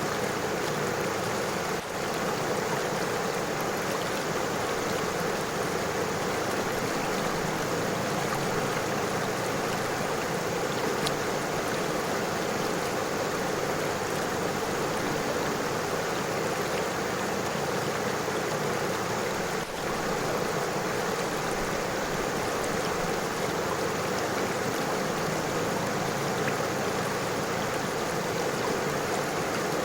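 A river running over stones: a steady rush of flowing water.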